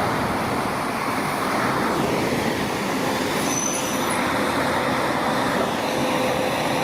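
Water spraying in a steady hiss, washing mud off toy vehicles.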